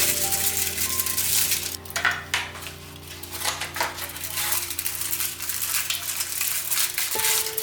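Metal utensil clinking and scraping against a pan and dishes in irregular sharp knocks, over background music with long held tones.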